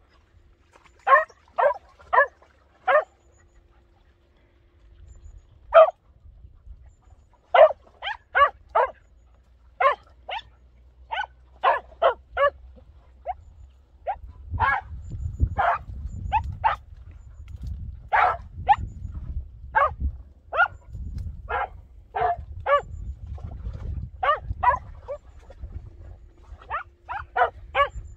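Podenco Orito Español barking repeatedly from cover in quick runs of two to five sharp barks with short pauses between runs: the hunting bark a podenco gives while working scent in brush. A low rumbling noise runs underneath from about halfway through.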